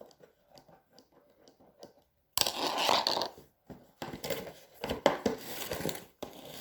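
A cardboard parcel being opened by hand: a few light clicks and handling noises, then about two and a half seconds in a loud rip of packaging, followed by several more ripping and rustling strokes.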